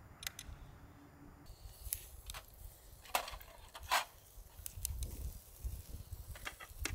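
Scattered sharp clicks and knocks, the two loudest about three and four seconds in, over a low rumble.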